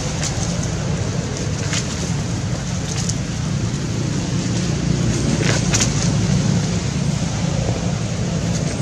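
Steady low rumble of wind on the microphone, with a few short crackles of dry leaf litter scattered through it.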